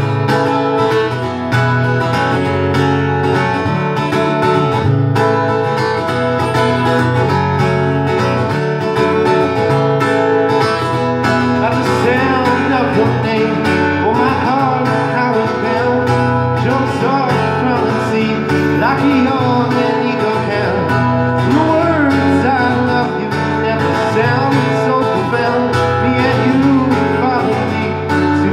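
Strummed acoustic guitar with a man singing over it, an indie-folk song played live through a small PA. His voice comes through more plainly from about halfway in.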